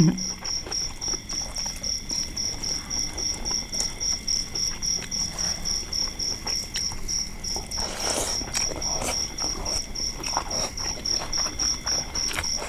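A cricket chirps steadily with a high, even pulse of about four chirps a second. Under it are faint clicks and smacks of people eating with their hands, and a brief louder rustle about eight seconds in.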